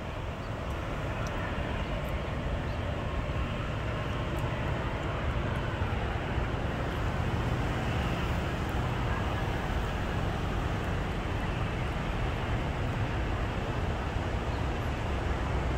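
Steady outdoor rumble of distant road traffic and jet aircraft, growing slightly louder about a second in.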